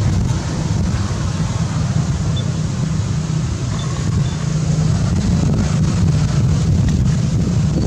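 Wind buffeting the microphone: a steady, loud, choppy low rumble with a hiss over it.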